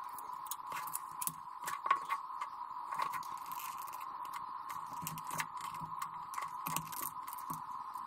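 Irregular light clicks and taps of hands handling an opened EV charger's plastic housing, circuit board and wiring, over a steady high-pitched hum.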